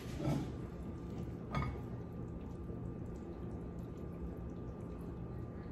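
Cooked vegetables in sauce sliding off a pan into a glass bowl, with a soft scrape early and a single light knock of the spatula about a second and a half in, over a steady low hum.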